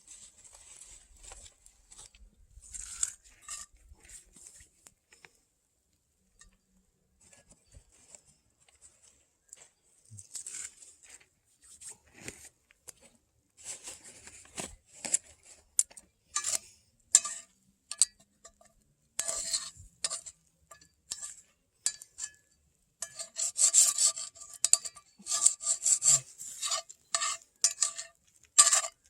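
Metal utensil scraping and stirring in a cast iron pan, in irregular strokes that get busier and louder from about halfway through, with the pan ringing faintly under the later strokes.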